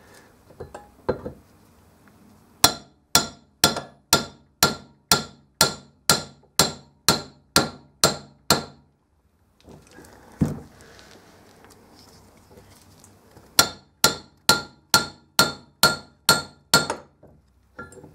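Hammer blows ringing through a tube and drift as a new steering-head bearing is knocked down onto the motorcycle's steering stem. There is a run of about a dozen strikes at about two a second, a single knock, then a quicker run of about nine. The ring of the blows changes note as the bearing seats fully home.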